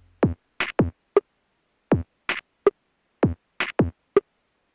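Background electronic music in a drum-machine break: only sharp electronic drum hits that drop quickly in pitch, several to a group, with short silences between the groups.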